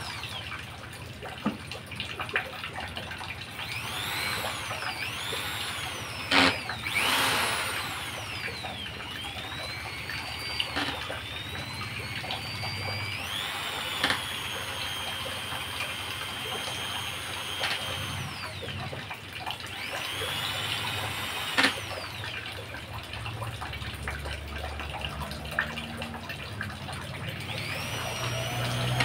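Corded electric hand drill run in short trigger pulls: the motor's whine rises and falls in pitch several times, holds steady for about four seconds midway, then winds down. A few sharp clicks sound between the runs.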